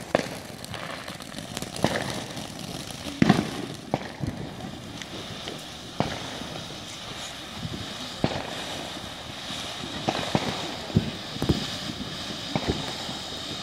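Ground fountain firework hissing steadily as it sprays sparks, with irregular sharp firework pops and bangs every second or so, the loudest about three seconds in.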